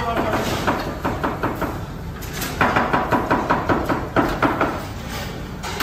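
Kitchen clatter: a fast, even run of short knocks, about seven a second, coming in two bursts in the second half over a steady background din.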